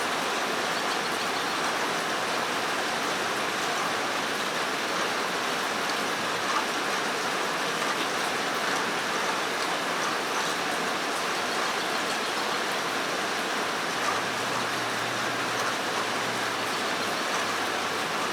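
Rain falling on a metal roof overhead, a steady even hiss of many drops.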